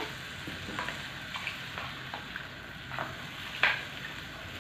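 A spatula stirring braising pork leg in a pan on a gas stove: a steady sizzle under a handful of short knocks and scrapes of the spatula against the pan, the loudest knock about three and a half seconds in.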